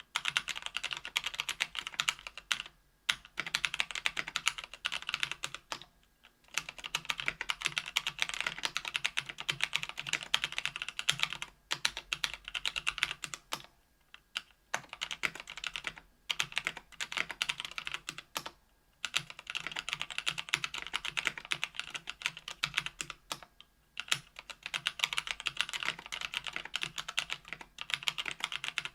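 Typing on a mechanical keyboard with stock Kailh Speed Silver linear switches, in an aluminum KBDfans Tofu 65% case with aluminum plate and GMK keycaps: rapid keystroke clacks, broken by short pauses every few seconds.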